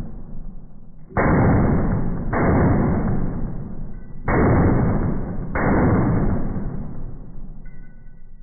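Rifle shots in slow motion: four deep, drawn-out booms, each starting sharply and fading away slowly, the gaps between them uneven, about one to two seconds.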